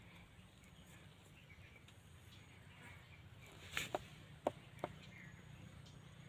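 Faint outdoor garden ambience with a few short, sharp clicks about four seconds in.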